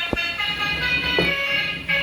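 Tooting, horn-like tones mixed with music, broken by two short knocks: one just after the start, one a little past a second in.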